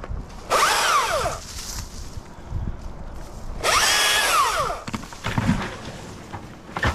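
Husqvarna T540i battery chainsaw triggered in two short bursts about three seconds apart, its motor whine rising and falling each time.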